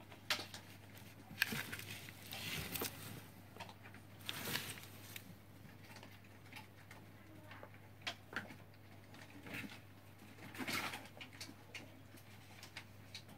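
Scattered soft rustles and light knocks, a few louder clusters among them, over a steady low hum.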